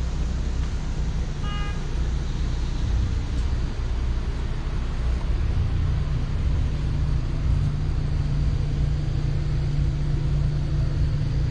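A motor vehicle engine running close by, a steady low sound, with a steady low hum coming in about five and a half seconds in. A very short high tone sounds about a second and a half in.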